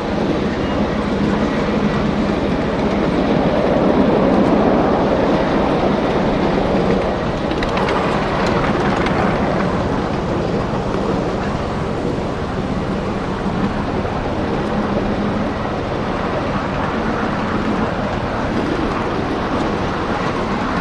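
Miniature ride-on railway train running steadily along its track, heard from one of the open passenger cars it is pulling.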